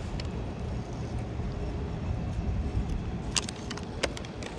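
Steady low rumble of traffic, with a few short clicks near the end.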